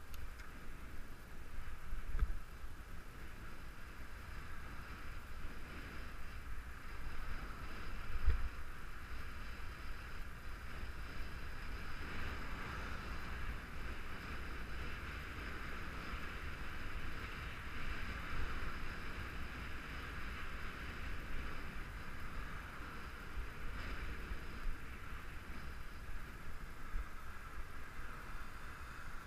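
Steady wind and road rumble on a camera riding along a paved road, with two sharper jolts about two and eight seconds in.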